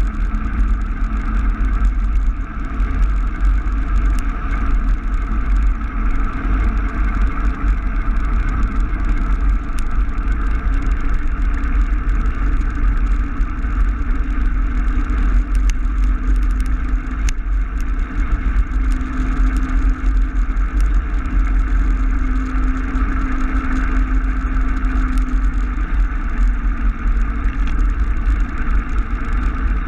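Steady rush and deep rumble of wind and tyre noise on the microphone of a camera riding along on a bicycle, loud and without a break.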